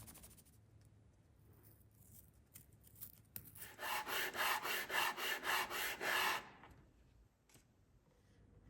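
Quick, evenly spaced hand rubbing strokes, like filing or sanding wood by hand: about a dozen rasping strokes at roughly four a second, starting a few seconds in and stopping about two seconds before the end, with lighter scratching before them.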